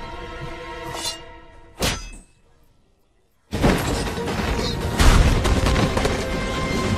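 Film fight-scene soundtrack: music with a sharp hit about a second in and another just before two seconds, then a drop to dead silence for about a second. Loud, dense fight sounds and music cut back in suddenly.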